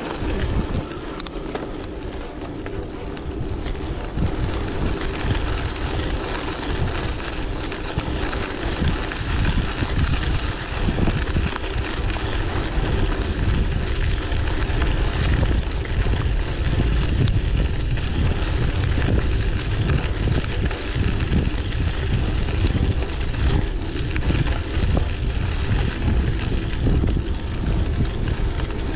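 Wind buffeting the microphone of a bicycle-mounted camera during a ride, a fluttering low rumble over steady rolling noise from the bike.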